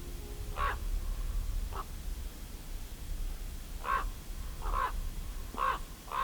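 A crow cawing, about six short harsh calls spaced irregularly, one of them fainter and shorter, over a low steady rumble.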